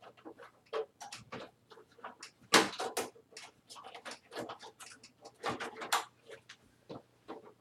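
Clicks, knocks and scrapes of computer parts being handled and pushed into a desktop computer case, with the loudest knock about two and a half seconds in.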